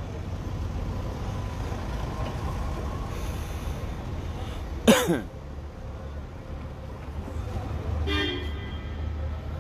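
Steady low rumble of street traffic, with a sudden short, loud sound falling in pitch about five seconds in and a brief higher-pitched sound near eight seconds.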